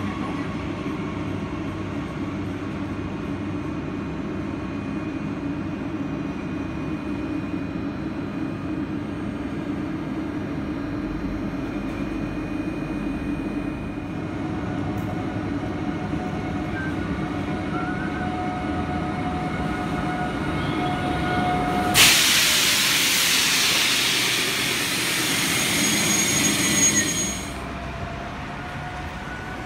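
Regional passenger trains in a station: a steady low hum of train machinery. About 22 seconds in, a sudden loud air hiss starts and runs for about five seconds before cutting off.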